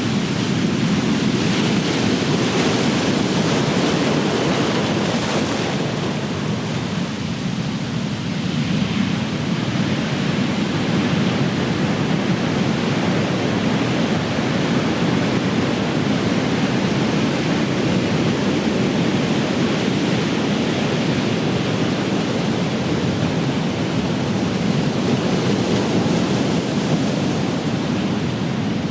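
Big ocean waves crashing and washing on the shore in a continuous rushing surf, the level swelling and easing slightly as the waves come in.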